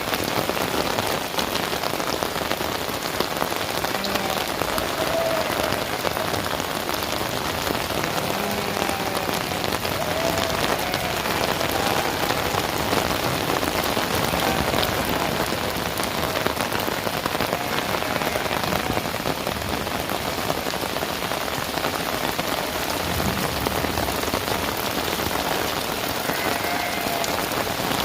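Heavy rain falling steadily, a dense even hiss of rain on surfaces with the patter of individual drops.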